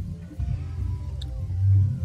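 Background music with a heavy, pulsing bass.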